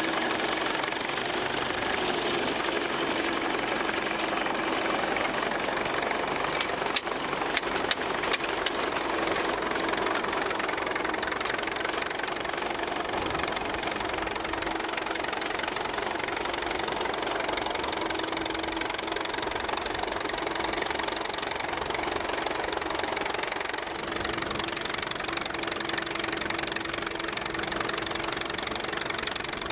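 1920 Case 22-40 cross-motor tractor's 10.5-litre four-cylinder kerosene engine running steadily under load, pulling a six-bottom plow through the soil. A few sharp clicks come through about seven to nine seconds in.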